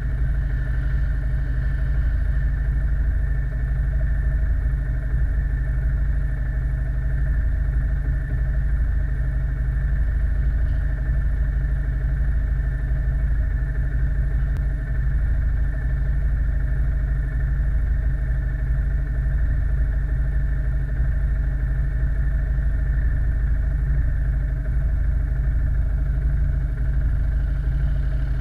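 ATV quad engine running at a steady pace, a continuous low drone with no marked revving.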